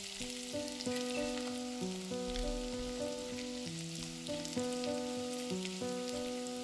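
Chopped onions, ginger and garlic sizzling as they fry in hot oil in a kadhai, a steady hiss with scattered crackles. Background music runs under it, a simple melody of single held notes.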